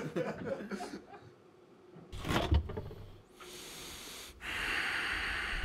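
A refrigerator being opened: a dull knock a little over two seconds in, then a steady hiss.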